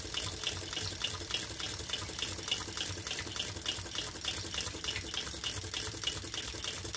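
Large Tarot Stirling engine turning a vintage Empire water pump by belt, running on leftover heat with the flame removed and just starting to slow down. Water from the pump splashes steadily into its tray, with a light regular click about three or four times a second from the running machinery.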